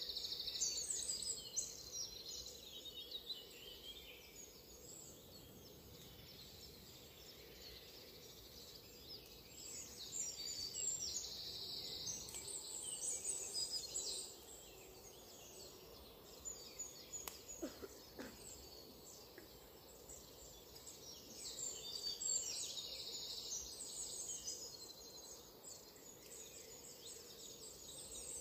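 Ospreys calling at the nest: bouts of rapid, high-pitched chirping near the start, again in the middle and once more toward the end, over faint steady background noise.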